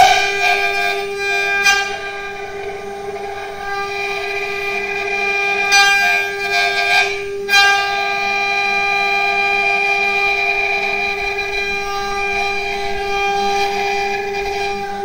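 CNC router spindle running with a steady high-pitched whine while its small carving bit cuts into wood on a 4-axis rotary carving machine. Harsher cutting noise flares up at the start, near two seconds in and again between about six and eight seconds in, as the bit bites deeper into the wood.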